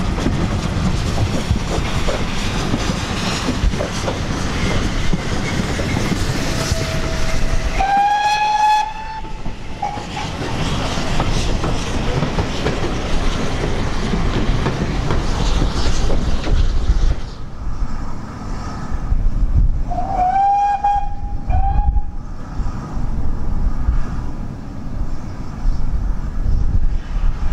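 GWR steam trains on the move: the clatter of wheels on rail and a working steam locomotive, heard from a moving train. A short steam whistle blast, stepping up in pitch as it opens, comes about a third of the way in, and a second one about two-thirds in.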